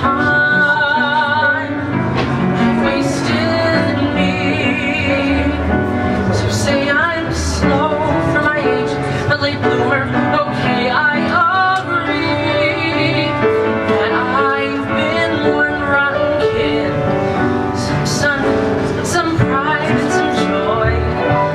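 A man singing a musical-theatre ballad live with piano accompaniment, his held notes carrying a clear vibrato.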